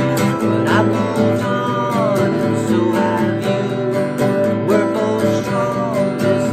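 A man singing while strumming an acoustic guitar in an even rhythm.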